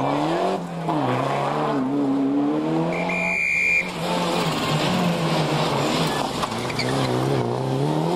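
Turbocharged four-cylinder rally cars driven hard on tarmac, the engine note climbing and dropping back again and again with throttle and gear changes, with tyre noise underneath: first a Ford Sierra RS Cosworth, then a Toyota Celica GT-Four. About three seconds in the sound cuts, with a brief steady high tone.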